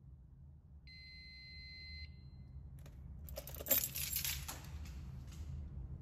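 A fire alarm annunciator's sounder gives one steady high beep a little over a second long, then after a click a ring of keys jingles for about two seconds as the key is taken out of the annunciator's keyswitch.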